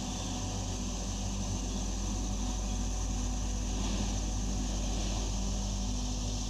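Steady low rumble of city traffic, engine noise with no distinct events.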